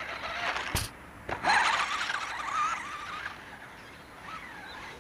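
Taiyo Jet Hopper RC buggy's electric drive motor and gears whining, the pitch wavering up and down as it drives over dirt. There is a sharp knock a little under a second in and another soon after. The whine is loudest for about two seconds, then fades as the buggy runs off.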